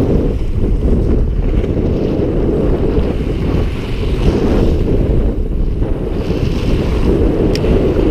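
Strong wind buffeting the action camera's microphone, with small waves washing over the rock ledge. A single short click comes near the end.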